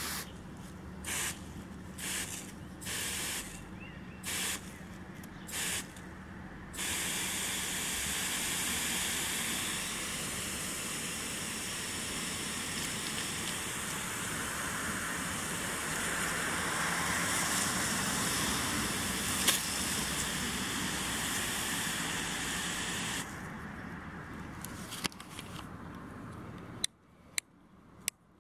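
Garden hose spray nozzle squirting water: about six short squirts, then a long steady spray of about sixteen seconds that stops, followed by a few sharp clicks.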